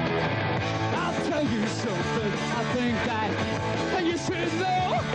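Live punk rock band playing a driving, raw three-chord song on electric guitars, bass and drums, with a male lead vocal coming in about a second in.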